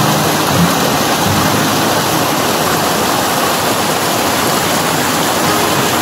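Water pouring over a small weir into a churning pool, a steady loud rush.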